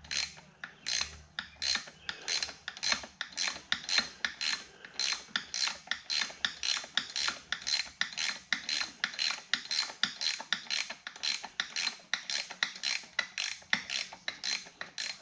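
Hand ratchet wrench being cranked back and forth on a bolt, a steady run of rasping clicking strokes at about two to three a second.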